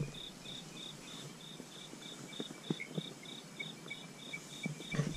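Night insects chirping outside the tent in a steady, high-pitched pulse, about three chirps a second. A few faint ticks and rustles sound now and then.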